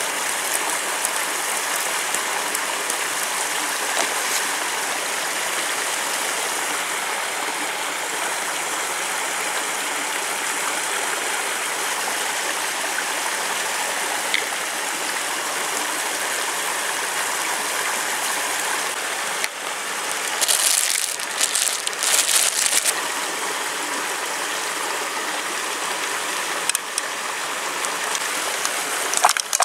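Steady rushing of a rocky stream. About two-thirds of the way through come a few brief, sharp rustling or shaking sounds.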